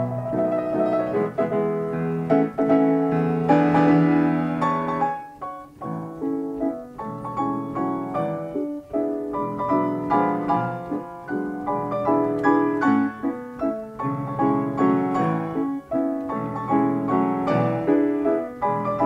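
Ampico player piano playing an 88-note paper music roll: continuous piano melody and chords, dipping briefly quieter about a third of the way in.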